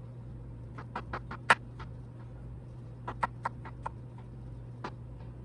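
Knife cutting mushrooms on a cutting board: irregular sharp taps in two quick runs, one about a second in and one about three seconds in, with a last tap near the end, over a low steady hum.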